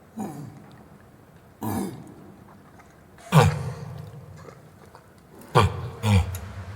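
Orangutan calling: five short, loud vocal calls spaced irregularly, most of them sliding steeply down in pitch.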